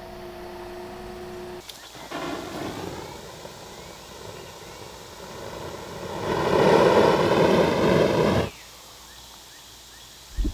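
A machine's engine running, its sound rising to its loudest for a couple of seconds before cutting off suddenly.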